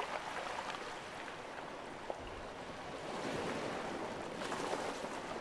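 Water ambience sound effect: a steady wash of water noise with a few faint clicks, swelling slightly about three seconds in.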